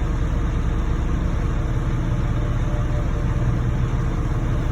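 A vehicle engine running steadily, a low, even drone that holds the same pitch throughout.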